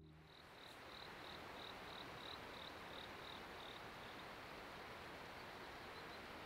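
Faint steady outdoor hiss with a run of short, high, evenly spaced chirps, about three a second, that fade out after about four seconds; two more chirps come near the end.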